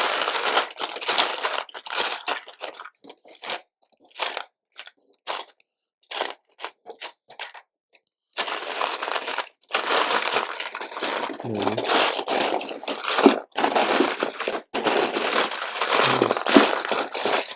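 Hands sifting through loose LEGO pieces, the plastic bricks rattling and clattering against each other. It comes in short bursts at first, then runs almost continuously from about halfway through.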